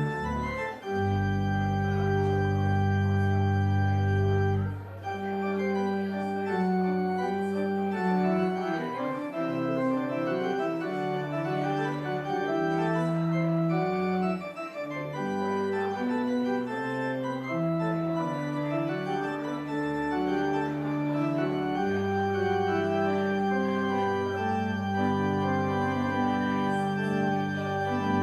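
Organ playing a slow piece in sustained chords, the notes changing every second or few, with deep bass notes that drop out about five seconds in and come back near the end. It is the organ postlude closing the service.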